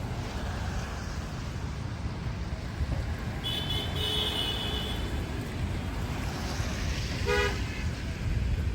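Horn tooting twice over a steady low rumble: a higher, thinner note lasting about a second, then a brief fuller blast a few seconds later.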